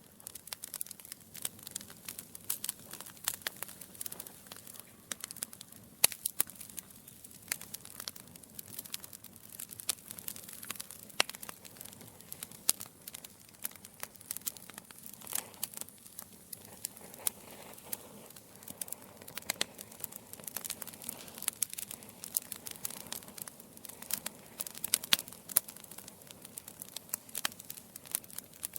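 Wood logs burning in a fireplace, crackling steadily with many small irregular pops and a few louder snaps over a soft hiss.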